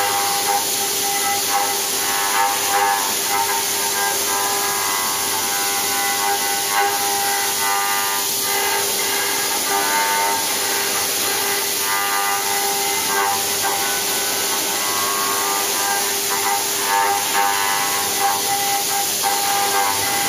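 Quick Jet AV-1612 CNC machining center's spindle turning a 20 mm four-flute bull-nose end mill at 6000 rpm through a metal mold in light finishing passes: a steady, high-pitched cutting whine of several tones over a hiss, running without a break.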